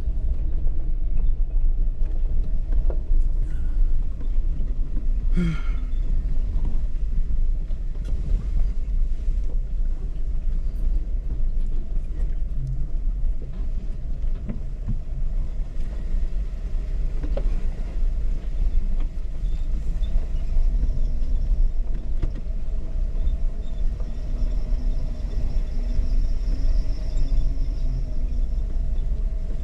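Jeep engine running at low speed off-road, a steady low rumble with small changes in engine pitch near the end.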